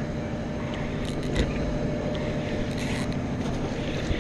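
Boat engine running steadily, with a knock about a second and a half in and a few brief rattles close by.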